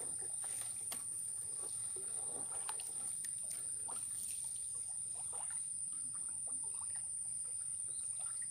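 Faint water trickles and small splashes as a wooden paddle dips and a gillnet is fed over the side of a canoe, with a steady high-pitched insect drone throughout.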